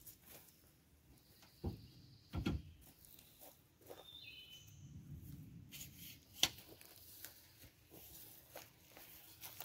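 Quiet outdoor background with a few scattered sharp clicks and knocks, the loudest about six and a half seconds in, and a brief high chirp near four seconds.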